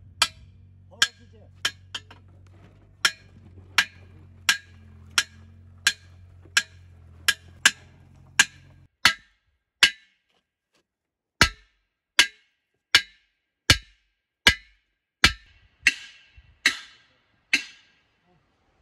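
Evenly spaced wood-block knocks, about one every 0.7 seconds, as a sparse percussion beat added to the soundtrack. A low steady hum underneath cuts out abruptly about nine seconds in, leaving only the knocks.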